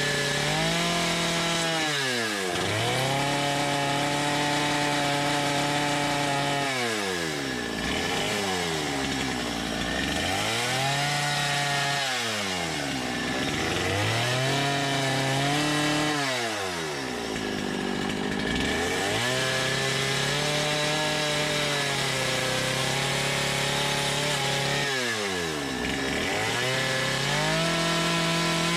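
Chainsaw carving wood, revved up to a high steady pitch and eased off again every few seconds, about five or six times.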